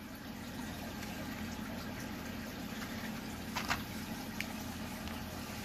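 Steady low background noise with a faint hum, and a couple of light clicks a little past halfway as a plastic blister pack is handled and set down.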